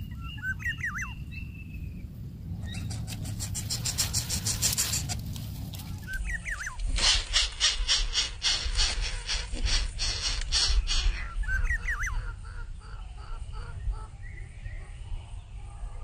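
Greater coucal chicks begging in the nest with fast, rhythmic rasping calls as the adult feeds them, in two long runs. Short curling chirps are heard now and then, over a low rumble.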